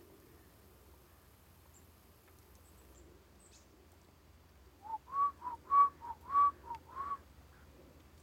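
A clear whistled phrase starting about five seconds in: a lower note then a higher, slightly arched note, repeated four times in just over two seconds.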